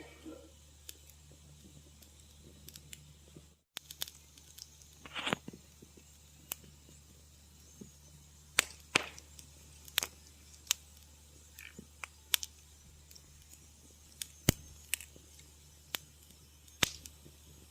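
Wood fire crackling in a fireplace: irregular sharp pops and snaps, some loud and some faint, over a faint steady hiss. The sound cuts out for an instant about four seconds in.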